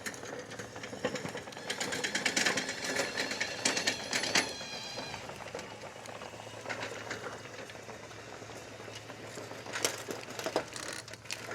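SDLANCH SDLLM500 remote-controlled tracked mower climbing a hill some way off: a faint run of track clatter and small knocks, with a low steady engine hum coming through in the second half.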